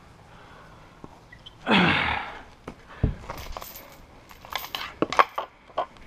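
A hurling goalkeeper's wooden hurley and the sliotar being handled while he takes the ball out of the net: a loud falling whoosh about two seconds in, a thump a second later, then a quick run of sharp knocks and clicks.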